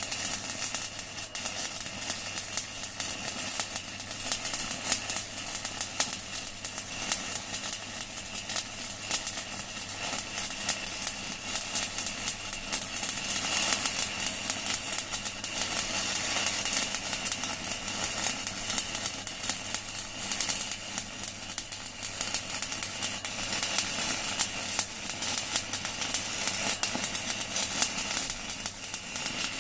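Stick-welding arc crackling and sizzling steadily with dense irregular crackle, from a 4 mm UONI basic-coated electrode burning at about 160 A on a small inverter welder.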